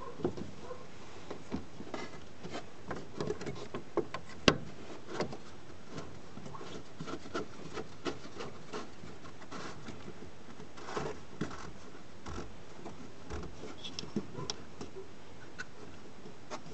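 Hands working a plastic fuel pump module and its retaining ring into a car's fuel-tank opening: scattered light clicks, taps and plastic rubbing, with one sharper knock about four and a half seconds in.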